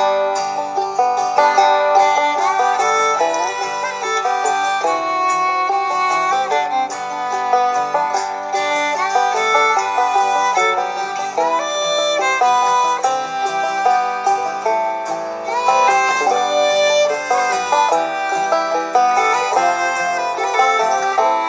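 Bluegrass-style background music with banjo and fiddle.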